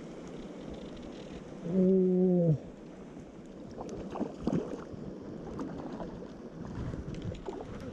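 A hooked trout splashing and thrashing at the water's surface, in several short bursts, over steady wind noise. Earlier comes one loud, low, even tone that lasts about a second and dips at its end.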